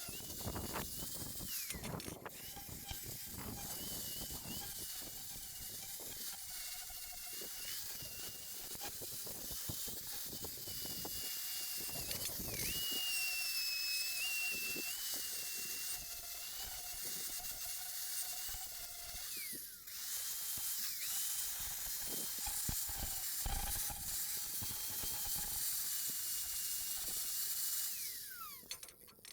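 Electric angle grinder running an abrasive pad against rusty steel to clean it up. The motor's steady whine sags in pitch whenever the pad is pressed in, over a harsh scrubbing hiss. The grinder briefly lets off about two-thirds of the way through and winds down near the end.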